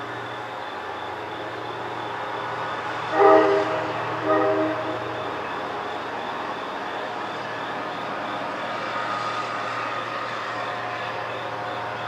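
A distant horn sounds two blasts, about three and four seconds in, each a rich chord of several tones. Under it runs a steady rumble and a constant high insect trill.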